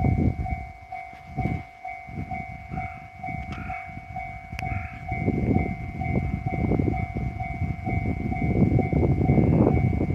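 E129 series electric train passing, its wheels rumbling and clattering over the rail joints, growing louder in the second half. A level-crossing warning bell rings in a steady pulsing two-tone pattern throughout, and two short high tones sound about three and a half and four and a half seconds in.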